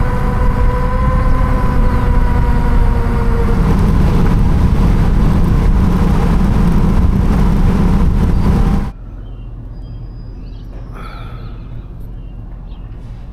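Loud wind and road noise, with a steady hum over the first few seconds; about nine seconds in it drops suddenly to a much quieter rumble.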